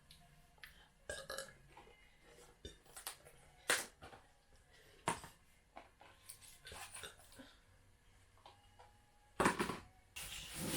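A woman burps, the loudest and longest burp about nine and a half seconds in, amid scattered short clicks and taps from her hands working on something.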